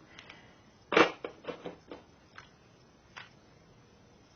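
Clicks of the EMG Archon Type B airsoft pistol being handled: one sharp clack about a second in, a quick run of lighter clicks after it, then two single small ticks.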